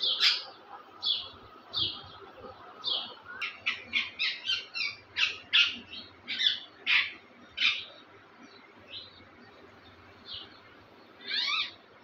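Caged green parakeets calling: a run of short, high chirps and squawks, coming fast through the first two thirds and then thinning out, with one longer call near the end.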